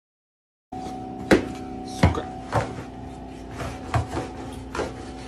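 Silence, then a steady low hum with about six sharp, irregular knocks over it.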